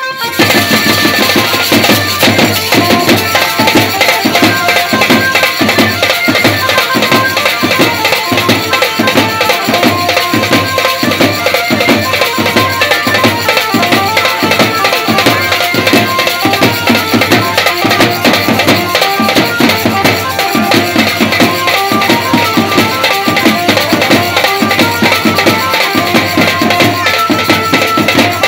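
A band of large strapped side drums and a snare drum playing a fast, steady folk dance beat, with a melody line above the drumming.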